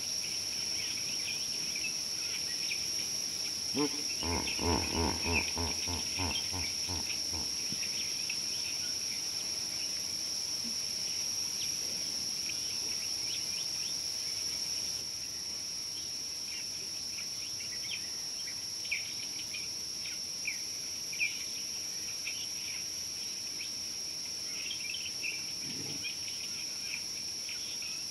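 Steady, high-pitched drone of insects with scattered bird chirps. About four seconds in, a louder, low, rapidly pulsing call lasts for three or four seconds.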